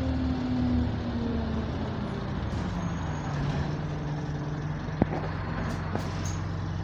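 Inside a city bus with a burst turbo: a whine from the engine and driveline falls in pitch as the bus slows, then the engine idles with a steady low hum. A sharp click comes about five seconds in.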